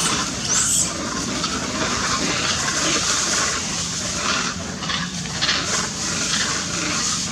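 A young monkey's brief high squeal about half a second in, over a steady rushing noise with scattered rustling.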